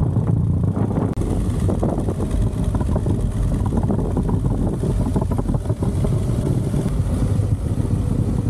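Harley-Davidson Street Glide Special's V-twin engine running while riding, with wind on the microphone. About a second in, it changes to a steady idle with the bike standing still.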